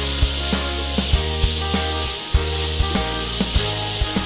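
Background music with a steady beat and a bass line. Beneath it, a spatula scrapes a wok and pork sizzles as it is stir-fried.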